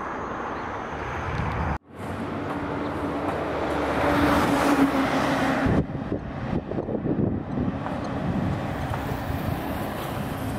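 Wind blowing on the microphone together with road traffic. A vehicle engine grows louder in the middle seconds. The sound drops out briefly about two seconds in.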